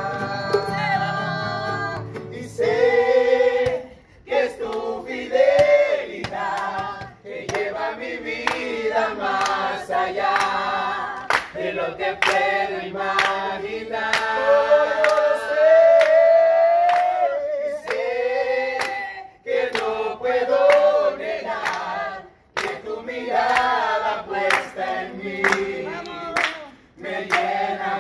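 A group of people singing a Christian worship song together, mixed men's and women's voices holding long notes, with sharp claps now and then.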